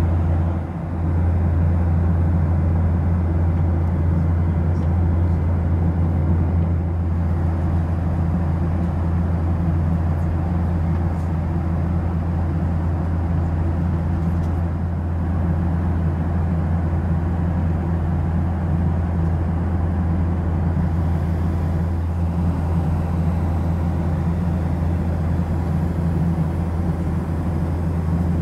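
Steady, deep cabin drone inside a Boeing 737-700 airliner.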